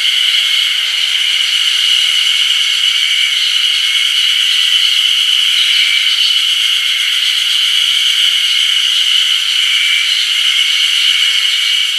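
A chorus of Ezo-harusemi (Terpnosia nigricosta), a spring cicada, in full song: a loud, steady, high-pitched shrill drone with faint flickering calls woven through it.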